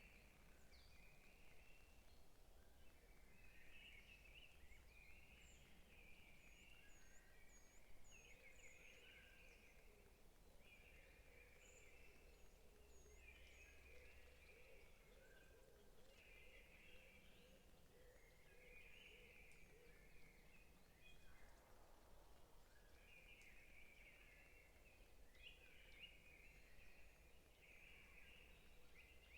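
Faint forest birdsong: a bird repeats a short warbling phrase every couple of seconds, with a few thin high chirps from another bird, over a low steady background rumble.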